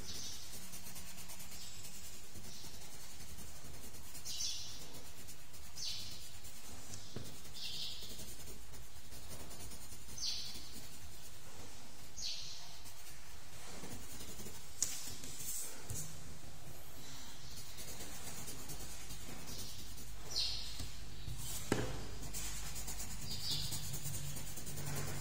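Colored pencil shading on paper: short scratchy strokes every second or two over a steady hiss, with a couple of sharp clicks.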